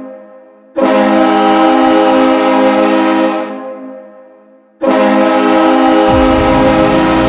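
Hockey goal horn sounding long, steady, multi-tone blasts that start abruptly and slowly fade out, one after another: a blast dies away at the start, a new one begins just under a second in and fades over a second or so from about 3 s, and another cuts in near 5 s. About 6 s in, the goal song's music starts underneath the last blast.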